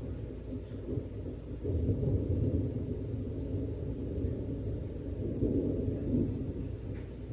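Rolling thunder: a continuous low rumble that swells about two seconds in and again near six seconds.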